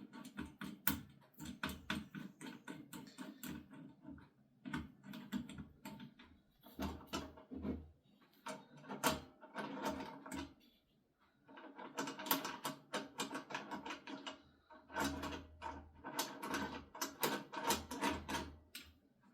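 Metal parts of an angle-grinder chop-saw rig clicking and rattling in irregular bursts as it is handled and bolted together, with short pauses between bursts.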